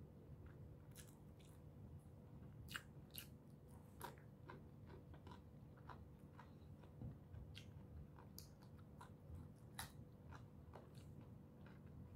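Faint mouth sounds of a person chewing a mouthful of chicken tocino and sticky rice: soft wet smacks and small clicks at irregular moments over a faint steady hum.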